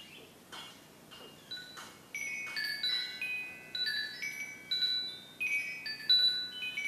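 Metal tube wind chime set swinging by a hand pulling its hanging tag. Its tubes strike and ring in overlapping tones: a few faint strikes at first, then busier and louder from about two seconds in.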